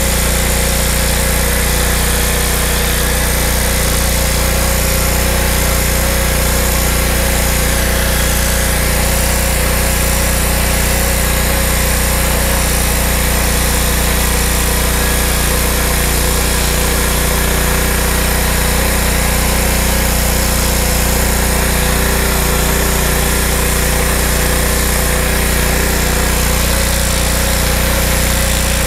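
Honda GX200 single-cylinder engine of a Dewalt DXPW3625 gas pressure washer running steadily at raised throttle, driving its triplex pump. Over it is the steady hiss of the turbo nozzle's high-pressure water jet striking concrete.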